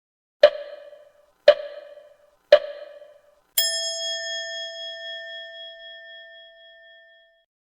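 Countdown-style sound effect: three short ding tones about a second apart, then a longer, slightly higher ding that rings on and fades out over about four seconds.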